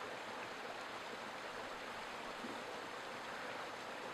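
Faint, steady rushing of a small forest brook.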